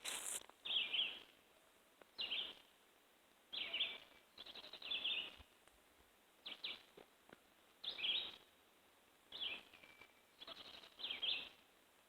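A bird calling over and over: a short call about every second and a half, each lasting about half a second. A brief sharp click comes at the very start.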